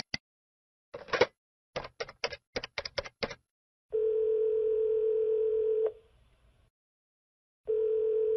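A telephone call being placed: a click, about eight quick key presses as a number is dialled, then the ringback tone of the line ringing. The tone rings twice, each ring about two seconds long.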